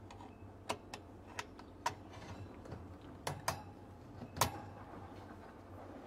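Metal shelf-support clip clicking against the slotted stainless-steel rail inside an explosion-proof refrigerator as it is worked by hand: several sharp metallic clicks, the loudest about four and a half seconds in.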